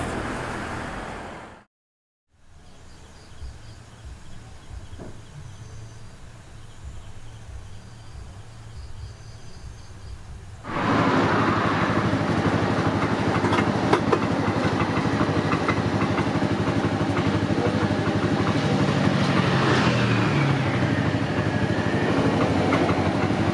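Music ends, then a moment of silence, then soft outdoor ambience with a few faint high chirps. About eleven seconds in, loud steady road-traffic noise with motorbike engines takes over, and a vehicle passes with a falling pitch around twenty seconds in.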